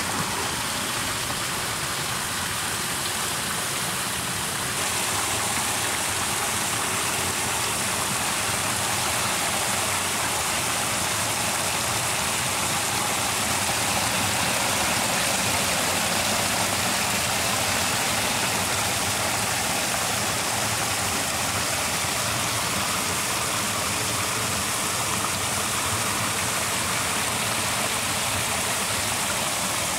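Water pouring steadily down a muddy bank and splashing into a pool, a continuous rushing wash.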